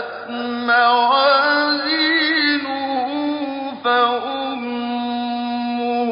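A male reciter chanting the Quran in melodic tajweed style, drawing out long held notes with a wavering, ornamented pitch. There is a short break for breath about four seconds in.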